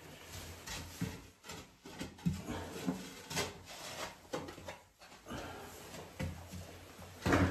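Irregular scrapes and knocks of hand-digging in packed clay soil, with a man's heavy breathing from the exertion; a louder thud near the end.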